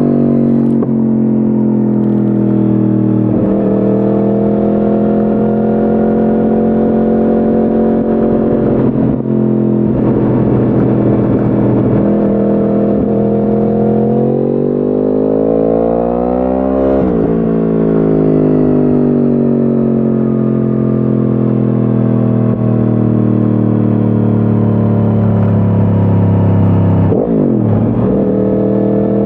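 2010 Yamaha R1's crossplane inline-four through a decat Akrapovic exhaust, riding under varying throttle. Brief breaks at gear changes about three and nine seconds in and near the end, and a rise in revs around fifteen seconds in that peaks and then slowly falls away.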